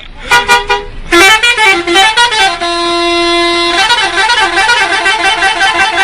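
Bus 'telolet' multi-tone air horn playing a melody: a few short notes, then a run of changing notes, one note held for about a second in the middle, then a fast warbling trill of notes.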